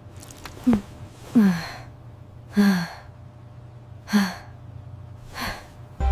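A voice giving a run of short, breathy sighs or gasps, about five of them a second or so apart, each falling in pitch.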